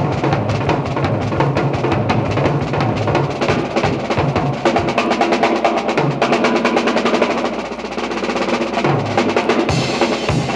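High school band recording played from an LP: a drum-heavy passage of fast snare drumming with bass drum under it. The sound turns brighter near the end.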